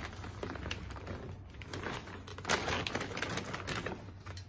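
Reusable shopping bag and product packaging rustling and crinkling as hands rummage through the bag, a rapid run of small clicks and scrapes, loudest about two and a half seconds in.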